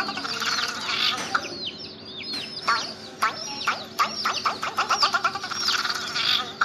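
Many chicks peeping, a constant stream of overlapping high, falling chirps.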